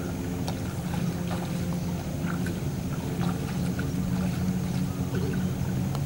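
A steady low engine hum, with scattered faint clicks over it.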